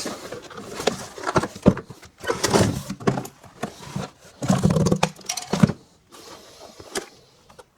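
A cardboard box being opened and its packaging handled by hand: irregular scraping, rustling and knocks of cardboard.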